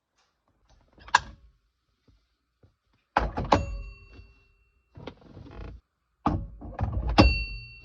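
Several knocks and thunks: a single sharp knock about a second in, then two clusters of clanks, each leaving a short metallic ring, with a brief scraping rustle between them.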